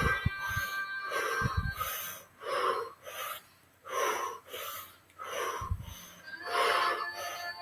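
Rhythmic yogic breathing: quick, forceful breaths in and out in a steady repeating pattern, roughly one every half second to second, over faint background music.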